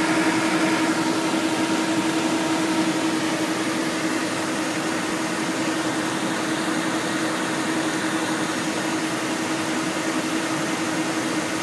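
Steady cockpit noise of a Cessna Citation Excel business jet in flight on approach: a constant rushing hiss with a steady low hum underneath.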